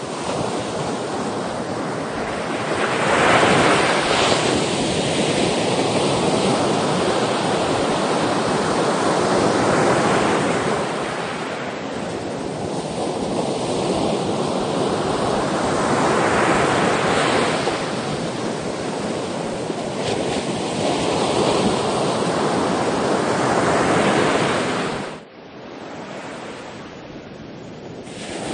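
Ocean surf: waves break and wash in as a steady rushing noise that swells and eases about every six to seven seconds. Near the end the sound drops away abruptly for a few seconds, then returns.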